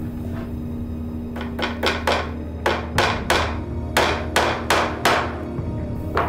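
A hammer tapping small nails through edging material into the wooden rim of a shield. There are about a dozen sharp strikes in quick uneven runs, starting a little over a second in, and one more near the end.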